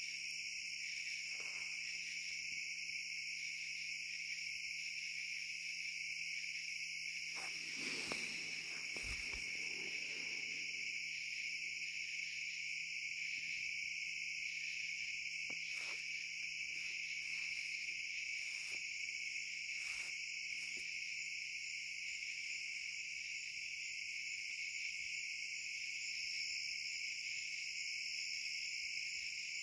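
Steady night chorus of crickets and other insects, a continuous high shrill. A brief rustle about eight seconds in and a few faint taps a little later.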